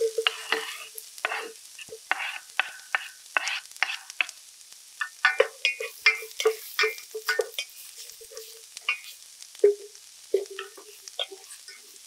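Sliced Japanese long onion (negi) sizzling in hot oil in an enamel pot. A wooden spoon stirs it, with many short scrapes and knocks against the pot, some of them ringing.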